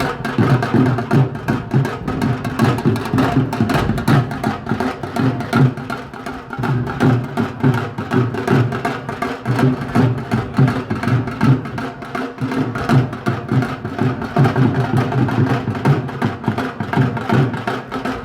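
Live street-band music, drums and percussion playing a fast, steady rhythm.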